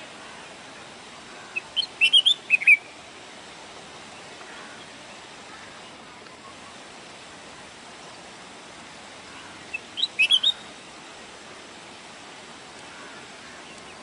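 Red-whiskered bulbul singing two short phrases of quick high chirpy notes, about eight seconds apart, over a steady hiss.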